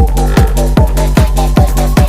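Electronic dance music with a steady kick-drum beat, a sustained bass line and a slowly rising synth sweep.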